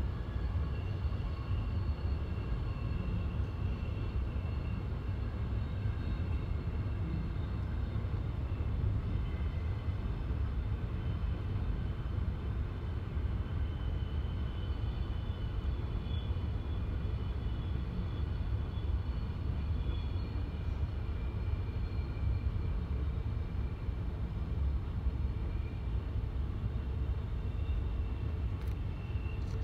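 Passenger train running steadily, heard from inside the carriage: an even low rumble of wheels and carriage with faint thin whining tones drifting above it, and a couple of faint clicks near the end.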